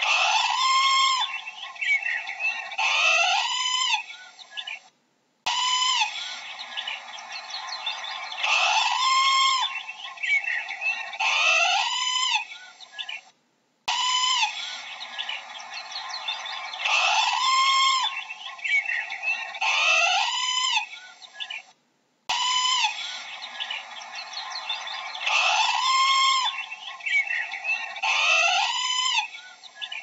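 Parrot calling: shrill, arched squawks that rise and fall in pitch, coming in quick groups. The same run of calls repeats about every eight and a half seconds, broken by short gaps of silence.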